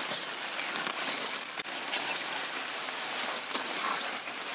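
Yellow nylon rain poncho rustling and crinkling as it is pulled on over the head.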